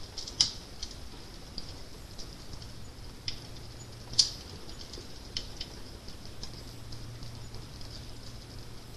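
Fire crackling: scattered sharp snaps and pops over a soft steady hiss, with two louder pops, one about half a second in and another about four seconds in.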